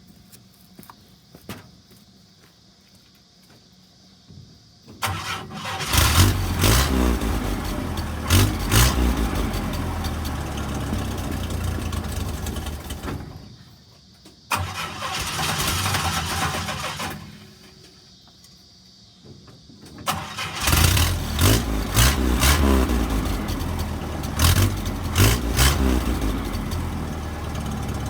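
1970 International Scout 800 engine started and running through its newly fitted muffler as an exhaust test. It starts about five seconds in, drops away twice, and runs again each time, still running near the end.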